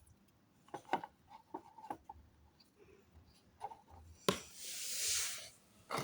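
Packaging being handled: scattered light clicks and taps, then a longer rustling or tearing sound that swells and fades over about a second and a half, starting about four seconds in.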